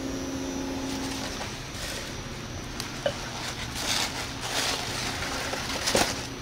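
Paper and foam packing rustling and crinkling in short, irregular bursts as a crystal wine glass is unwrapped and handled, with a couple of small clicks. A faint steady hum fades out in the first second or two.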